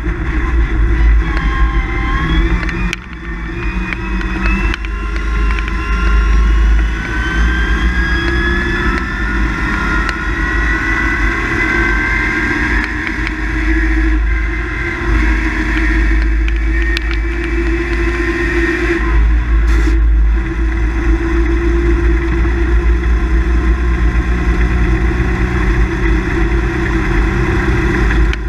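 GAZ-53 truck's engine at full rally pace, heard from inside the cab: a brief drop about three seconds in, then a long pull that climbs slowly in pitch for some fifteen seconds, a short break near twenty seconds, and steady running under load to the end, over a constant low rumble of road noise.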